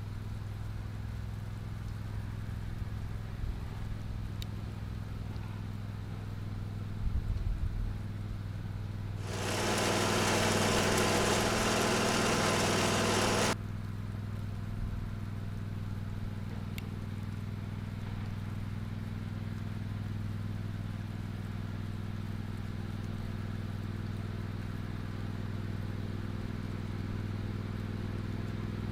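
A small engine running steadily at a low drone, with a few knocks about seven seconds in. Near the middle, a much louder full-range noise lasts about four seconds and starts and stops abruptly.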